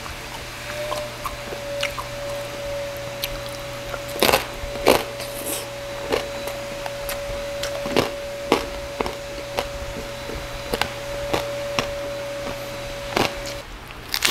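Close-miked chewing of crispy roast pork belly (lechon liempo): wet crunches and mouth smacks about every half second to second, over a steady hum that stops shortly before the end.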